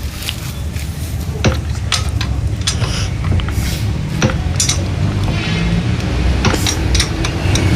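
Scattered light metallic clinks and taps of tools and engine parts being handled, over a steady low rumble that grows louder near the end.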